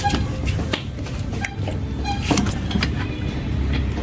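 Scattered light clicks and taps of hands working at plastic wiring connectors, over a steady low engine-like hum.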